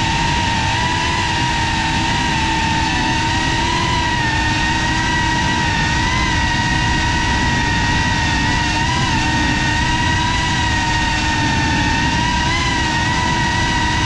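FPV quadcopter's electric motors and propellers whining steadily in low, fast flight, heard from the onboard camera, with small wobbles in pitch as the throttle changes, over a rush of prop wash and wind.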